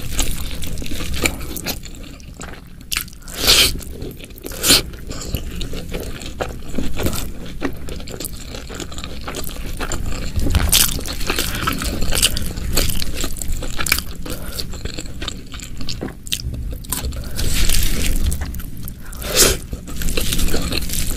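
Close-miked eating: a person chewing and biting into crunchy food, with irregular crunches and a few louder, sharper bites scattered through.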